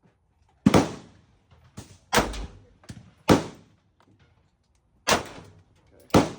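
A .36-calibre black powder cap-and-ball revolver, a Confederate copy of the 1851 Navy, fired five times about a second apart. Each shot is a sharp crack with a short echo.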